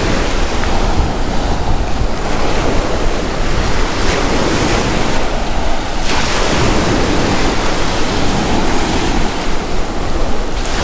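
Rough surf breaking and washing onto a sandy beach, steady and loud, with wind rumbling on the microphone.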